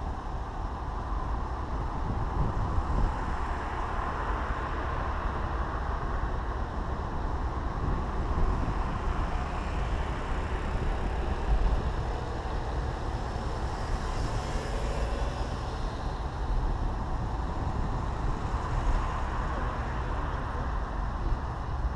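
Small classic car driving at a steady speed, heard from inside the cabin: a steady low engine and road rumble, with other traffic passing close alongside.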